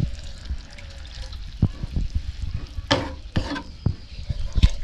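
Wooden spatula stirring grated carrot halwa in a nonstick frying pan, scraping and knocking against the pan several times, the sharpest knocks about three seconds in and near the end, over a soft sizzle from the pan.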